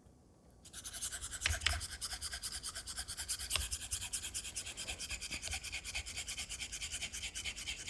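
Straight razor blade scraping on an Atoma 600 diamond plate in rapid, even, short back-and-forth strokes, several a second, starting just under a second in. This is bevel-setting on a blade that had no bevel.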